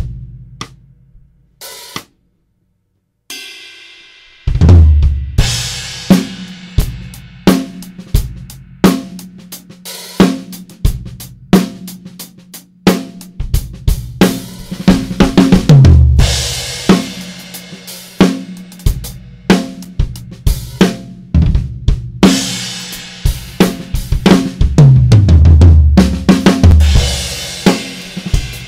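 Sonor Designer drum kit with a Sonor cotton-wood snare played in a steady groove, with kick, snare, cymbals and hi-hat, recorded close through an Audix DP7 drum-mic set with no EQ. After a brief silent gap about two seconds in, the groove starts with a crash, and tom fills run down the toms at about 15 and 25 seconds.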